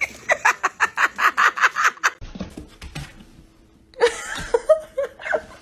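A voice laughing in a fast string of short pulses for about two seconds, then, after a pause, a few brief vocal sounds near the end.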